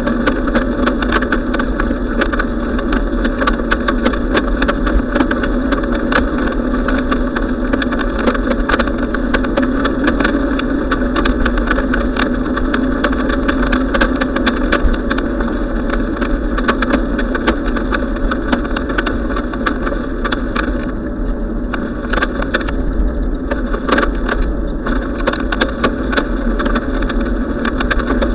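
A bicycle rolling along a paved trail, heard from a camera mounted on the bike: steady rumble and road noise with frequent sharp, irregular clicks and rattles from the bike and its mount.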